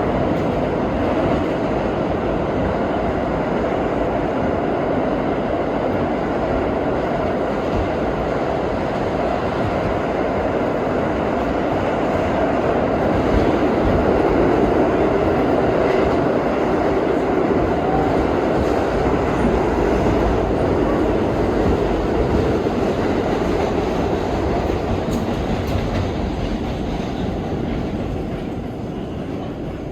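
R32 subway train running at speed, heard from inside the car: a steady rumble and rattle of wheels on rail, growing a little quieter near the end.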